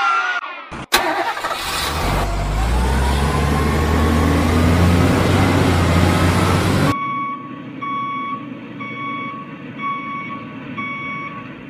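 A truck engine starts with a click and runs heavily for about six seconds, then cuts off abruptly. A truck's reversing alarm follows, beeping steadily a little more than once a second and getting fainter near the end.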